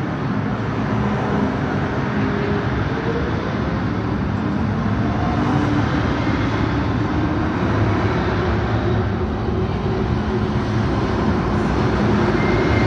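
MTR M-Train electric multiple unit pulling out of the platform: steady wheel-on-rail rumble with motor tones that rise in pitch as it gathers speed.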